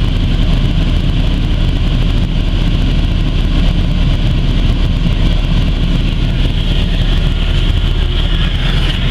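Mk3 Volkswagen Jetta's engine idling steadily, heard from inside the cabin.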